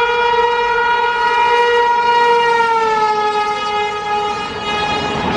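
Electric locomotive horn held in one long blast as the train passes at speed. Its pitch drops about three seconds in as the locomotive goes by, and the rumble of the passing coaches rises beneath it near the end.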